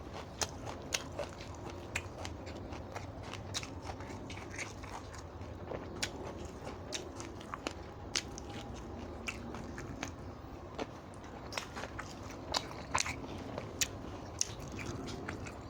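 A person chewing and biting food close to the microphone, with many sharp, irregular clicks and snaps.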